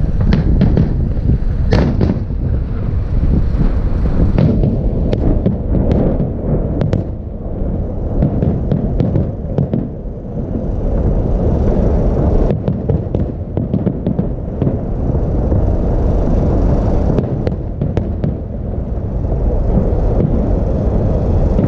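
Festive salute fireworks: aerial shells bursting one after another in many sharp bangs and crackles over a continuous low rumble, with the loudest bang about two seconds in.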